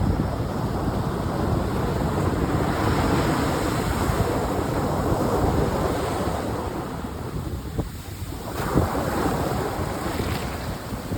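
Atlantic Ocean surf washing and breaking on the shore, with wind buffeting the microphone. The surf eases briefly about eight seconds in, then the next wave builds.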